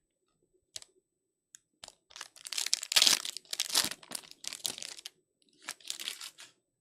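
Trading card pack wrapper being torn open and crinkled by hand, in several rustling bursts, loudest about three seconds in, with a sharp click near the start.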